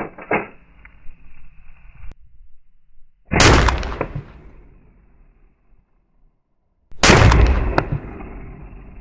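Two shots from a .44 Magnum lever-action rifle, about three and a half seconds apart, each with a long fading tail. Near the start comes the clack of the lever being cycled as the spent case is ejected.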